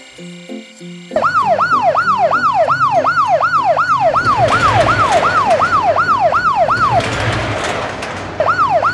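Cartoon police-car siren: a rapid wail of falling sweeps, about three a second, starting a second in after a few notes of music. The siren breaks off for about a second near the end, leaving a rushing noise, then resumes.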